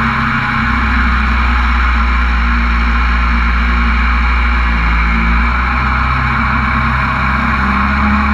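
Mini jet boat's engine running steadily at cruising speed, with the rush of water and wind over the hull.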